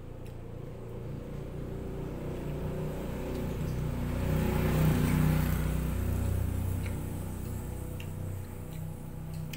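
A motor vehicle's engine passing by. The low hum builds to its loudest about five seconds in, then fades away. Faint clicks sound now and then over it.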